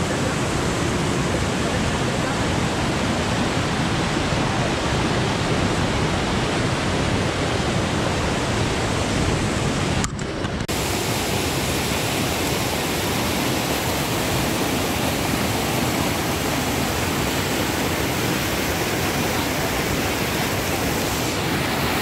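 Bomburu Ella waterfall: a steady rush of falling water. It dips briefly about ten seconds in.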